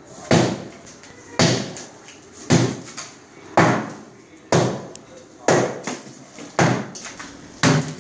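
Hammer blows struck at a steady pace of about one a second, eight in a row, each a sharp hit that trails off briefly, as renovation work is started.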